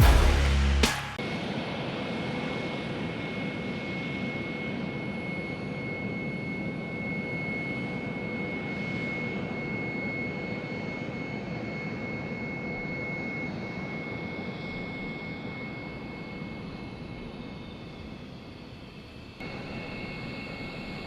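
Jet aircraft engines running steadily, a steady rush with a thin high whine in it. About nineteen seconds in it cuts abruptly to another stretch of similar engine sound.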